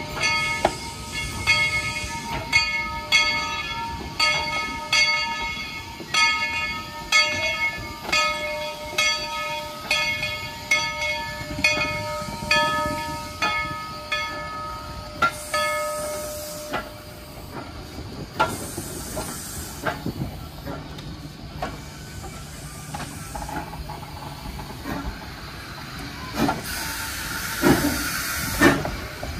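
Steam locomotive bell ringing in steady, evenly spaced strokes. It stops about halfway through, and then steam hisses from the locomotive in several bursts, loudest near the end.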